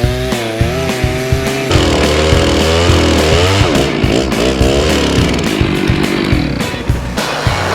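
Chainsaw running under load, cutting into a clay-packed Claro walnut burl root, its engine pitch wavering up and down as the chain bites and eases.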